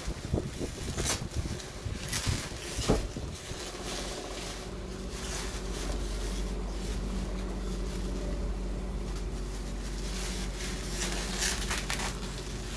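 Plastic packaging and bubble wrap crinkling as they are handled and cut with scissors: sharp crackles through the first three seconds and again near the end, over a steady low hum.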